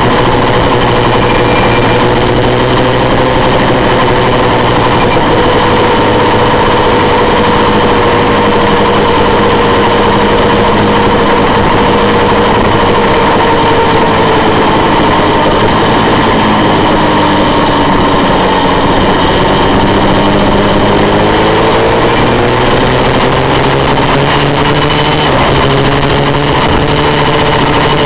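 Honda VFR400 race bike's V4 engine running hard, with rushing wind on an onboard camera. The engine note holds steady, falls away past the middle as the rider backs off, then climbs again as the bike accelerates.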